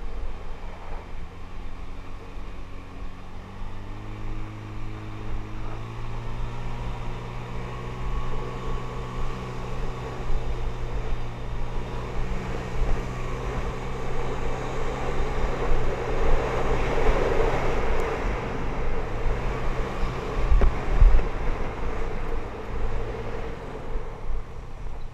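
Small motorbike engine running under way, its pitch stepping up over the first few seconds and then holding steady, with wind buffeting a head-mounted microphone, loudest past the middle.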